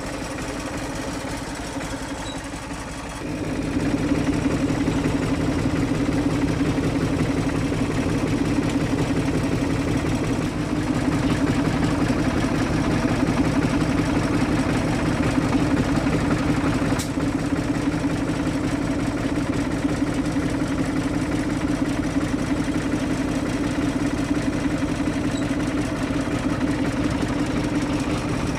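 1985 Fiat Štore 504 tractor's diesel engine running steadily. About three seconds in it becomes louder and deeper, then holds that higher, even note.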